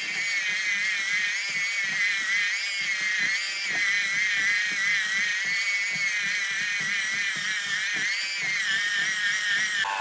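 Moulinex electric hand mixer running steadily, its twin beaters whipping thick batter in a glass bowl: a high motor whine that wavers slightly in pitch, with faint irregular clicks.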